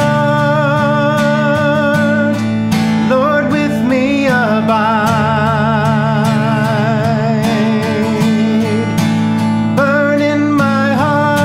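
A man singing a slow worship song to his own strummed acoustic guitar, holding one long note with vibrato through the middle.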